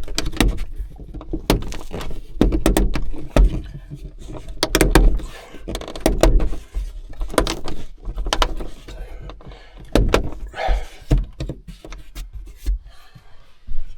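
Plastic dome light housing of a Volvo V70 being pressed back into the roof lining: a run of sharp plastic clicks, knocks and low thuds as its trim clips are pushed home.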